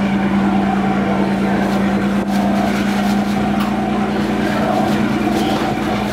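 Fast ferry's engines running steadily, a loud constant drone.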